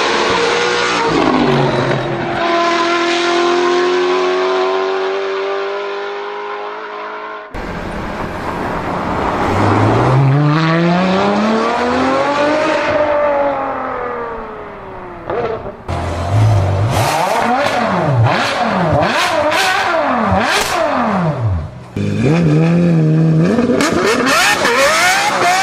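Car engine accelerating and revving, its pitch climbing and falling through several pulls. In the second half come quick throttle blips and sharp cracks. The sound jumps abruptly at several edit cuts.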